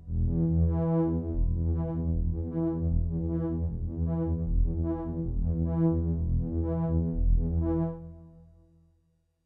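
Korg Poly 61M analogue polyphonic synthesizer playing a patch: a low bass held under chord notes struck about every three quarters of a second. The sound fades out about eight seconds in.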